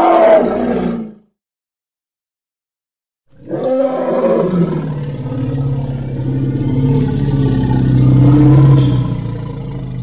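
Elephant roar sound effect: a short call fades out about a second in, and after two seconds of silence a long, low roar runs for about seven seconds.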